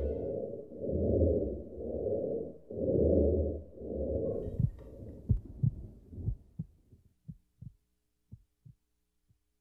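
Low, muffled rhythmic throbbing like a heartbeat, about one pulse a second, that breaks up about five seconds in into single low thumps, sparser and fainter, dying out near the end.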